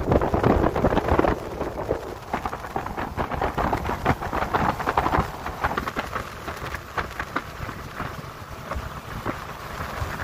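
Wind buffeting the microphone and water rushing along the hull of a boat under way at speed, with a dense crackle of spray and quick slaps of chop against the hull.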